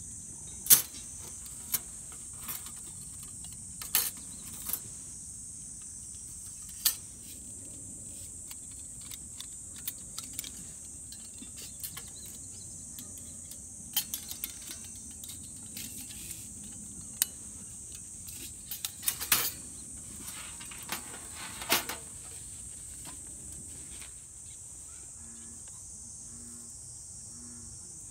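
Thin metal plates of a folding mini fire stand clicking and scraping against each other and the metal tabletop as they are slotted together by hand, in scattered sharp clinks with a cluster of them in the second half. Insects drone steadily and high-pitched throughout.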